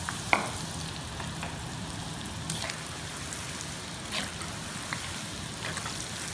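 Thin garlic slices deep-frying in hot oil, a steady bubbling sizzle. A few light clicks of a metal slotted skimmer stirring against the pan.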